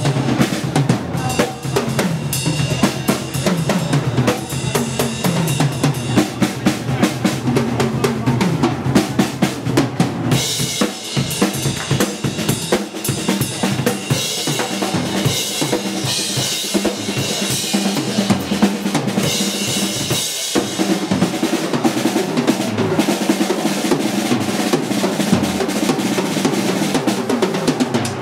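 Drum kit played solo, live: fast, dense strokes on bass drum, snare and toms, with cymbals ringing much heavier from about ten seconds in.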